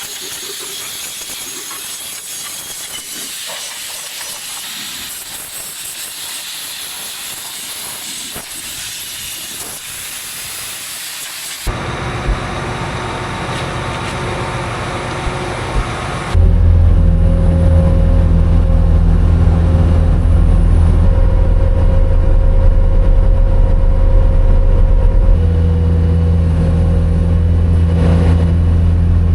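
A steady hiss for about the first twelve seconds, then a cut to machinery, and from about sixteen seconds a farm machine's engine running loudly at a steady speed with a deep hum.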